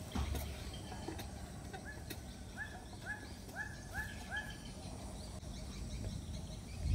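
Garden hoe chopping into soil, giving a few dull knocks, while an animal gives a run of about six short calls, each rising then falling, about two a second.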